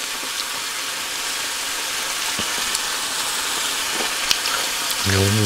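Food sizzling in a hot pan on a portable gas stove: a steady frying hiss, with a few light clicks.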